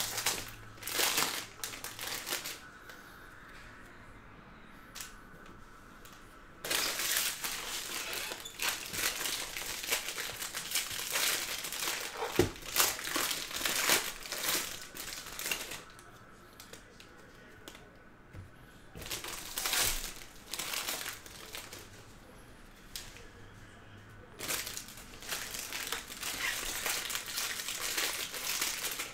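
Foil card-pack wrappers being torn open and crinkled by hand, in several bursts of crackling with quieter gaps between, the longest from about seven to sixteen seconds in and another near the end.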